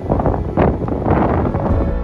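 Strong gusting wind buffeting the microphone, a rough noisy rumble that swells and dips.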